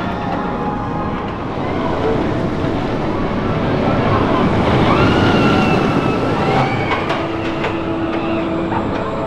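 Intamin launched roller coaster train rushing along its steel track, with an electric whine that rises and holds about five seconds in, typical of the linear synchronous motor launch sections.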